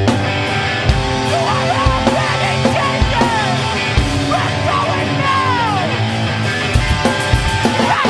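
Punk rock song played on electric guitar and drums, with the singing coming in about a second in.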